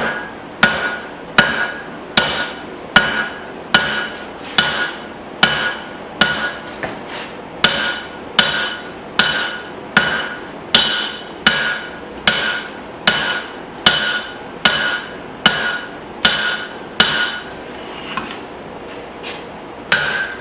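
Hammer blows on hot spring steel on the anvil, shaping a hatchet head. The strikes come in a steady rhythm of about one every three-quarters of a second, each with a short metallic ring. They turn lighter and sparser near the end.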